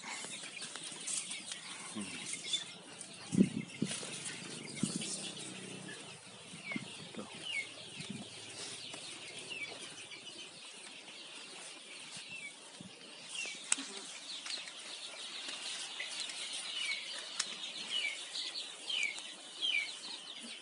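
Four-week-old kampung chickens peeping, a long run of short, high chirps that fall in pitch. A few soft thumps and rustles of wings and feet come about three to five seconds in.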